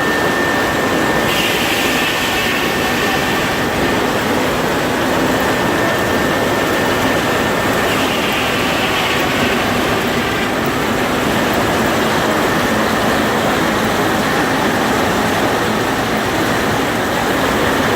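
Steam-powered sawmill running: a loud, steady mechanical noise, brightening briefly twice.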